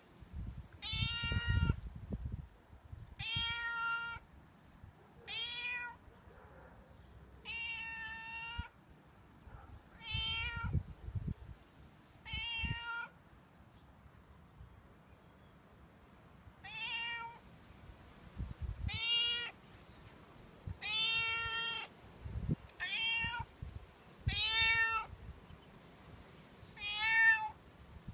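Black-and-white domestic cat meowing about a dozen times, short calls that rise and fall in pitch, one every two seconds or so with a pause around the middle: a stray cat asking for food.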